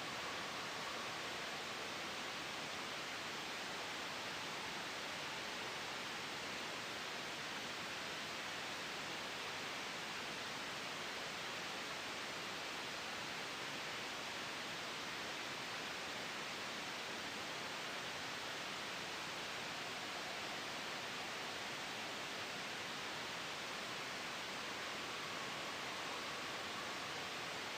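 Steady sleep white noise: an even, unchanging hiss, strongest in the upper-middle range, with no gusts, swells or sudden changes.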